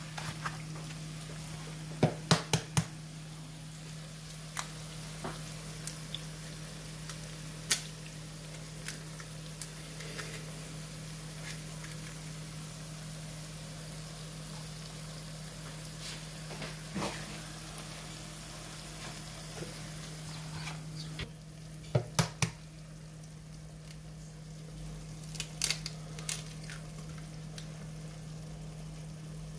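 Potato, onion and tomato mixture sizzling gently in a frying pan over a low gas flame, with sharp taps in small clusters at intervals as eggs are cracked against the pan and dropped in. A steady low hum runs underneath.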